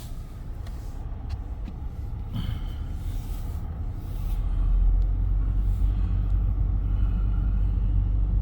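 Car running with a low road-and-engine rumble heard from inside the cabin, growing louder about four seconds in as it picks up speed, then holding steady.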